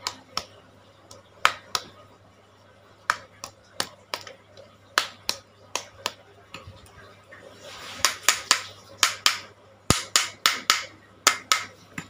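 Quick, sharp spurts from a hose spray nozzle blasting the shaft bushing of an indoor air-conditioner fan motor to clean out rust and dirt: some two dozen short bursts, irregular at first and coming faster in the last few seconds.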